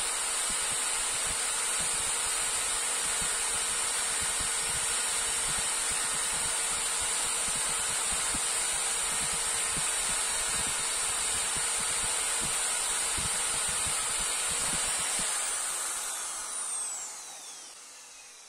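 Old corded electric drill, mounted horizontally as the motor of a boring jig, running steadily at full speed while its bit bores into a pine block. About 16 seconds in it is switched off and its whine falls in pitch as it spins down.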